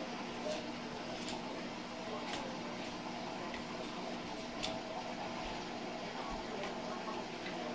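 Kitchen knife cutting raw meat away from a pig's head: soft wet squishing with a few light sharp clicks, over a steady background hum.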